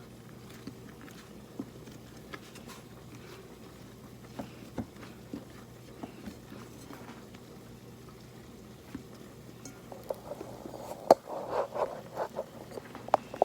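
Hands kneading soft, sticky dumpling dough of flour and water: scattered soft squishes and light taps over a faint steady hum. A louder run of knocks and one sharp click comes near the end.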